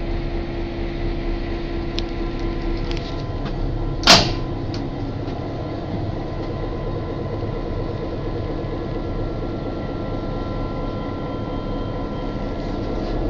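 Steady drone of an EMD GP38-2 locomotive's 16-cylinder two-stroke diesel engine, heard from inside the locomotive. A single sharp metallic clunk about four seconds in as the nose-compartment door is worked.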